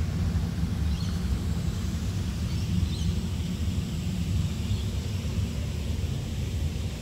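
Low, steady outdoor rumble of open-air background noise, with a few faint high bird chirps about one and three seconds in.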